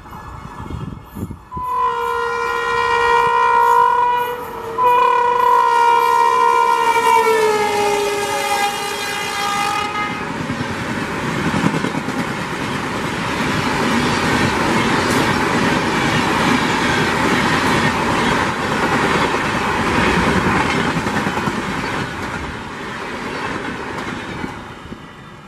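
Electric locomotive horn sounding in two long blasts as the train approaches at speed, the second dropping in pitch as the locomotive passes. The coaches then run past with a steady rushing wheel-and-rail noise and rapid clatter that fades near the end.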